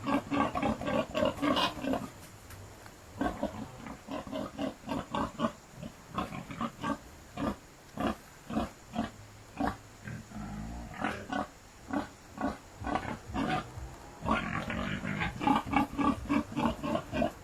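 A pig grunting over and over, short grunts coming in quick runs, densest at the start and again near the end.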